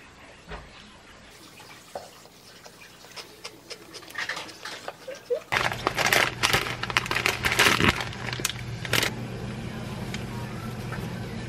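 Plastic packet of dried brown-rice noodles crinkling and rustling loudly as it is handled and the noodles are pulled out, over a steady low hum that starts about halfway through. Before that, only a few faint small clicks.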